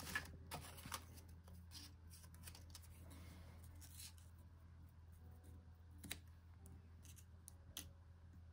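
Near silence with a few faint, scattered clicks of small craft embellishment pieces being handled and set down on a desk.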